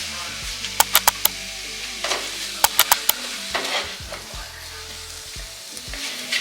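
Food sizzling as it is stirred in a frying pan, with quick clusters of sharp clicks from a utensil against the pan about a second in and again around three seconds in.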